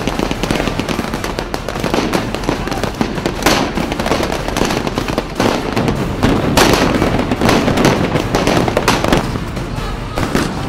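Rapid small-arms gunfire, shots overlapping into a dense crackle, with the loudest bangs about a third of the way in and just past the middle.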